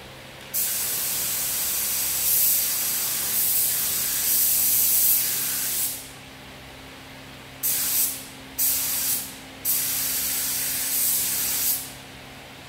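SATA 5000 RP spray gun with a 1.3 nozzle hissing as it sprays a second coat of Poly-Tone paint. One long pass of about five seconds starts half a second in. It is followed by three short trigger pulls and a final pass of about two seconds. A faint steady low hum runs underneath.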